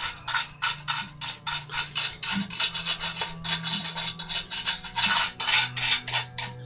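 Toothbrush scrubbing dried salt crystals off a painted plastic model part, in rapid back-and-forth scratchy strokes, several a second. The salt is coming away and chipping the top paint to reveal the rust-coloured undercoat.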